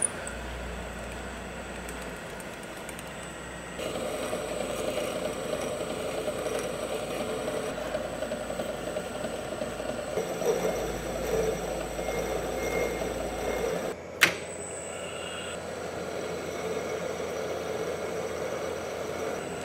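Metal lathe running and cutting a part held in its chuck, first drilling and then boring and turning. A steady machine noise that changes character about four seconds in and again after a sharp click about fourteen seconds in.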